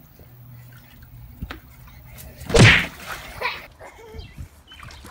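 A child landing in a water-filled inflatable paddling pool: one loud splash and slap about two and a half seconds in, followed by brief children's voices.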